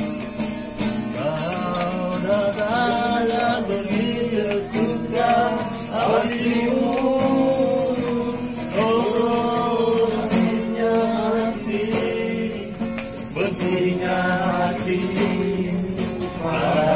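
Acoustic guitar played as accompaniment to singing. The voices come in sung phrases of a few seconds each, with short breaks between them.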